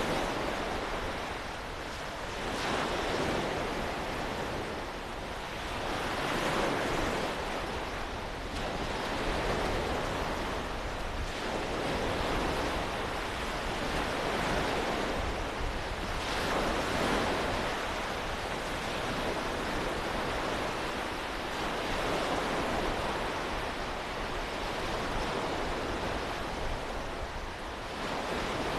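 Waves breaking on a beach shore, swelling and fading every few seconds, with wind rumbling on the microphone.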